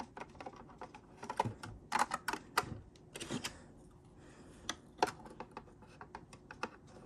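Small hard plastic parts clicking and tapping irregularly as shelves are pushed into a miniature toy refrigerator, with a few louder snaps among the light clicks.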